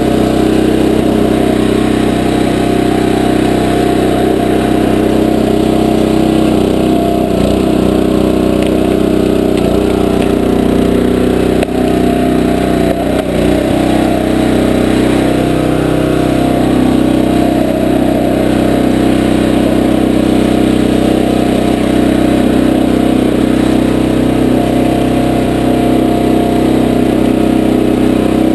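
Small gasoline engine of a 20-ton Powerhorse horizontal log splitter running steadily, driving the hydraulic pump. Its note shifts unevenly for several seconds about a quarter of the way in, as a log is being split.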